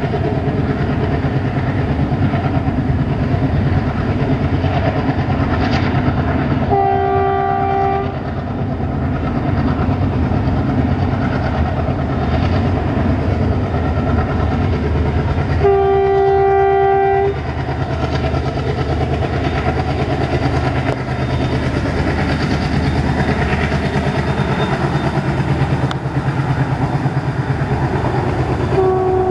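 WDP3A diesel locomotive with its ALCO engine hauling a passenger train: a steady engine rumble mixed with wheel-on-rail noise. Its multi-tone horn sounds twice, a blast of about a second some seven seconds in and a longer one of about a second and a half near the middle, and starts a third time at the very end.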